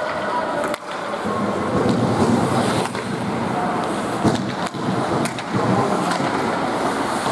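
Ice hockey skate blades scraping and carving on the ice as the players skate. A few sharp knocks come through, from sticks hitting the puck or the ice.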